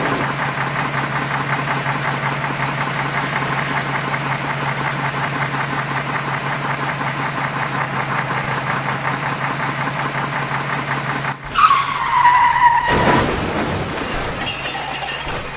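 A steady engine-like hum with a fast flutter. About eleven seconds in, it cuts off sharply and gives way to a short falling tone and other brief sounds.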